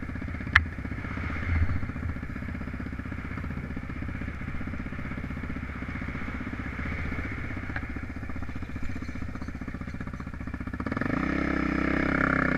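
Hill-climb motorcycle engine running steadily, with one sharp click about half a second in; near the end the engine gets louder as it revs up.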